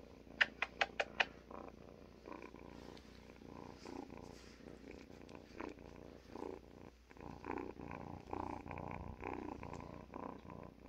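Kitten purring close to the microphone, a steady rough rattle. A quick run of five sharp clicks comes about half a second in and is the loudest sound.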